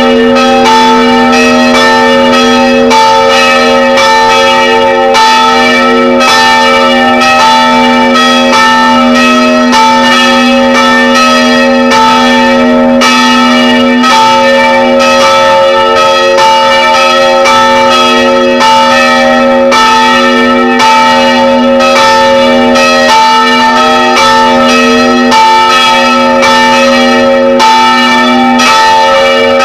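Three church bells of 250, 110 and 55 kg, swung by a magnetic drive, ringing together at close range inside the belfry, their strikes overlapping in a continuous, very loud peal.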